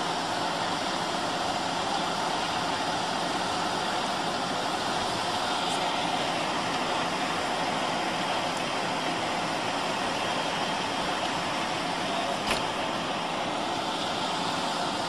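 Idling vehicle engines running steadily, with one short click about twelve and a half seconds in.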